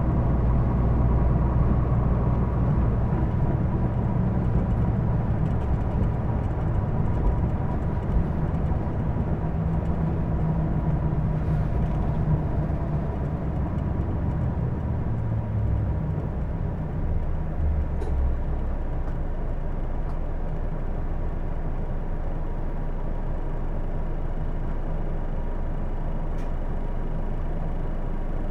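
Cabin running sound of a Hino Blue Ribbon II city bus, a bus singled out for its strange running noise. The engine pulls and then eases off, settling into a lower, even rumble after about 17 seconds. A thin steady whine sits above it throughout.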